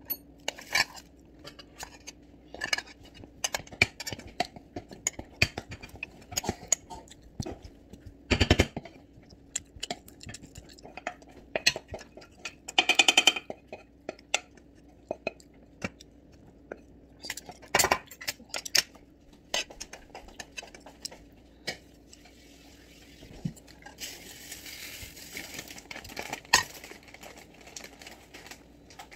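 Metal spoon clinking and scraping against a stainless steel food tray during a meal: many short clinks, with a louder knock about eight seconds in and a few seconds of hiss near the end.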